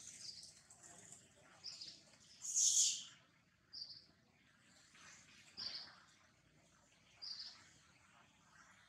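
Forest birds calling: short high chirps every second or two, the loudest and fullest about three seconds in.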